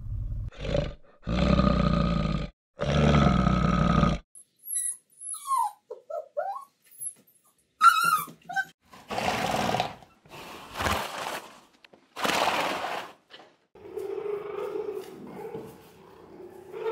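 A series of farm animal calls. First come two long, low calls, then a run of short calls that glide up and down, then several loud noisy bursts, and finally a steadier pitched call near the end.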